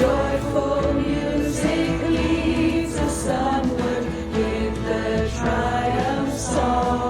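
Choir singing a gospel-style hymn over instrumental accompaniment.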